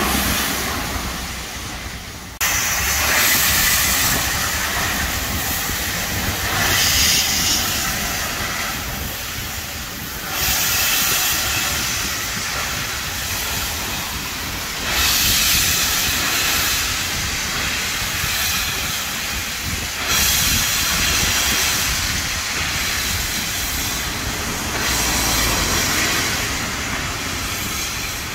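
LMS Black 5 steam locomotive 45212 hissing steam loudly. The hiss surges suddenly several times and eases off between surges.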